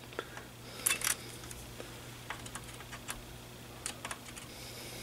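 Faint scattered clicks and taps of multimeter test probes touching and scraping on a circuit board as a transistor's collector is probed, the loudest pair about a second in, over a low steady hum.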